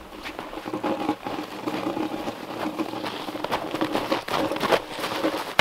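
Footsteps crunching and scuffing in snow, irregular and continuous, as a man walks carrying a heavy log.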